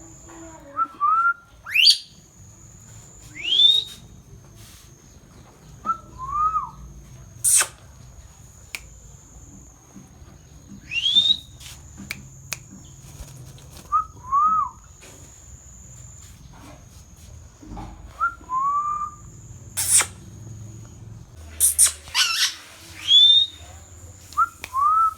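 Pet ringneck parrot giving short rising whistles and chirps every couple of seconds, with a few sharp squawks, the calls coming more thickly near the end.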